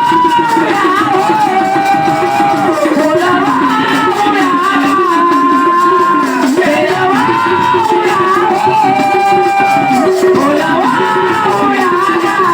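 A devotional song to Mahadev (Shiva), a sung melody with gliding, held notes over instrumental accompaniment and a steady rhythmic percussion.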